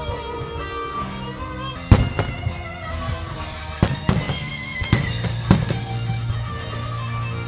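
Aerial firework shells bursting over music: a series of sharp bangs, the loudest about two seconds in and more around four and five and a half seconds.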